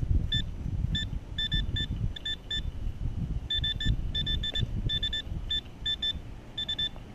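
Handheld metal-detecting pinpointer giving short, high beeps at irregular intervals, more often in the second half, as it is worked through the hole and picks up the buried target nearby. Low scraping of soil and pine needles underneath.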